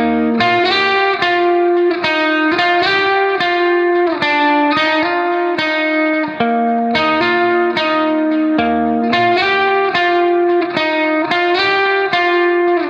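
Background music: a guitar playing a repeating melody of plucked notes, with an effects-tinged electric tone.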